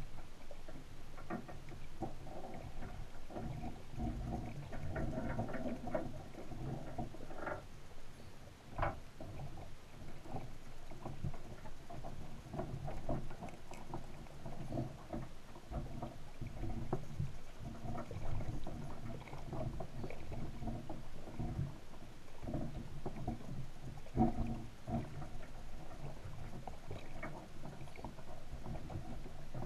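Underwater ambience picked up by a submerged camera: a muffled, uneven low rumble with scattered small clicks and knocks, a sharper knock about 9 seconds in and another about 24 seconds in.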